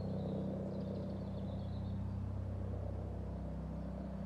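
Distant Eurocopter EC135 helicopter flying over: a steady low drone with a fast pulsing beat.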